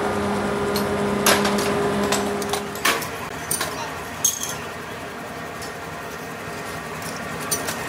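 Light metallic clinks and clicks of cast aluminium brake-shoe castings being handled, over a steady low machine hum that stops about three seconds in. After that come scattered sharper clinks.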